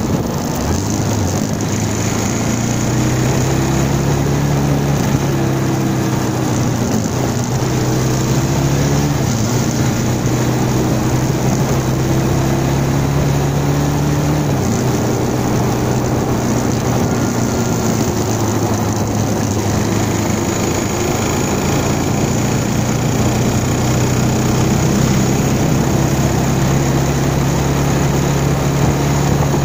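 Bajaj Pulsar 220's single-cylinder engine running under way at city speed, its note rising and falling with the throttle and dropping suddenly about halfway through, with steady wind and road noise.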